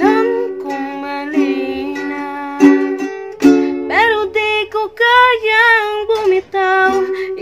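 Ukulele strummed in chords with a woman singing over it, her voice sliding up to a high note about four seconds in.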